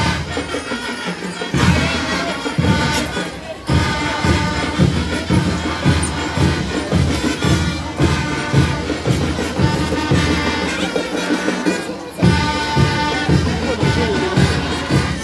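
Student marching band playing a tune over a steady, regular drum beat.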